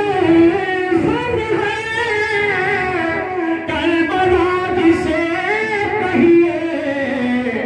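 A man reciting Urdu verse in a sung, melodic chant into a microphone over a PA, holding long notes that rise and fall.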